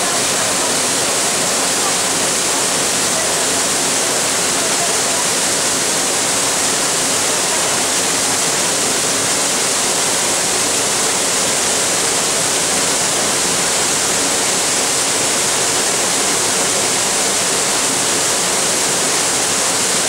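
Small waterfall pouring between boulders into a rock pool: a steady, unbroken rush of falling water.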